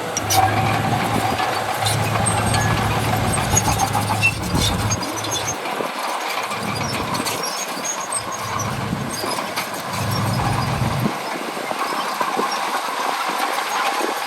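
Bulldozer at work. Its diesel engine hum drops away several times, while its steel tracks keep up a steady high-pitched whine with scattered metallic clicks.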